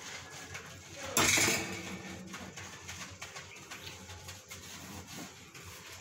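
Handwashing a wire table-fan guard at a kitchen sink: light scrubbing and clicking of the wire mesh, broken about a second in by a short, louder low coo-like voiced sound with a hiss.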